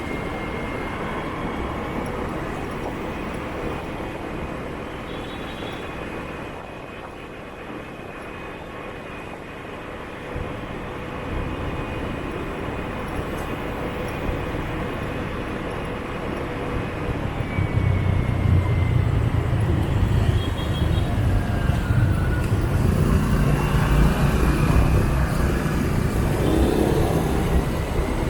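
Riding a motorbike through city traffic: steady engine and road noise. About two-thirds of the way in, a louder, low engine rumble rises for about ten seconds, then eases near the end.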